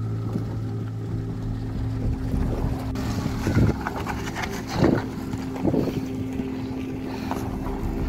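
Small car's three-cylinder petrol engine (Maruti Suzuki Alto 800) running steadily as it drives slowly through shallow water and mud and past close by. Gusts of wind buffet the microphone a few times between about three and a half and six seconds in.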